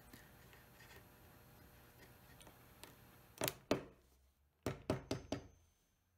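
A small hammer tapping thin glued mahogany strips down into a split in a mahogany tabletop: six light knocks in the second half, two and then four in quick succession.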